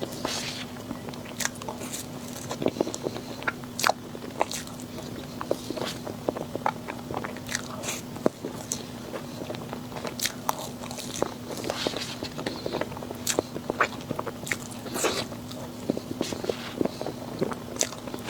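Close-miked eating of sweets: repeated biting and chewing with sharp, irregular crunchy clicks, over a steady low hum.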